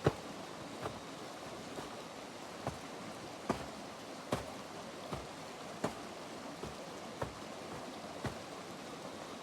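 About eleven sharp, short knocks or taps in a loose rhythm of roughly one a second, over a steady rushing background like running water.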